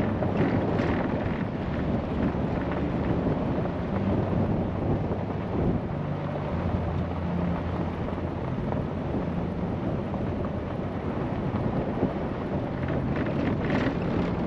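A vehicle driving along a gravel dirt road: steady engine hum and tyre rumble on the gravel, with wind buffeting the microphone.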